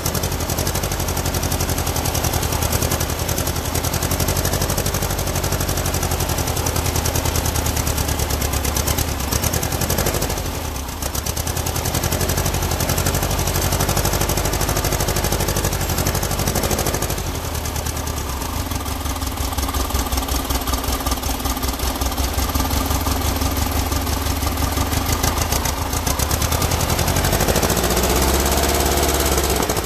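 Freshly built air-cooled Volkswagen flat-four engine running on its first start-up, uneven because the carburetors are not yet tuned. Its speed sags briefly about ten seconds in, drops lower at about seventeen seconds, then climbs again near the end.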